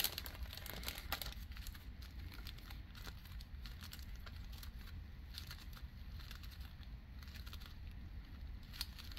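Faint crinkling of small plastic bags of diamond painting drills being handled one after another, with scattered light clicks and two slightly louder ones, about a second in and near the end.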